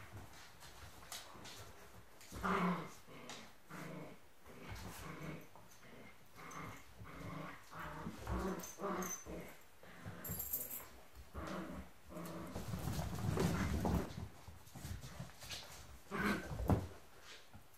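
Six-week-old Smooth Collie puppies play-growling and yapping in short bursts, many in quick succession, louder around a couple of moments.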